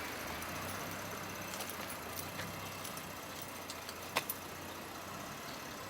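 A few light metallic clicks and taps over a steady low hum, with two sharp clicks close together a little past the middle, as brake caliper parts are handled.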